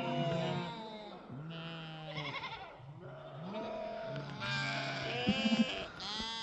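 A flock of sheep bleating, many overlapping calls from several animals at once.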